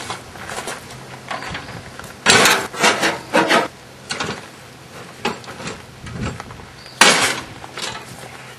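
A run of loud knocks and clanks, in a cluster about two to three and a half seconds in and again near seven seconds, with quieter scraping and rattling between.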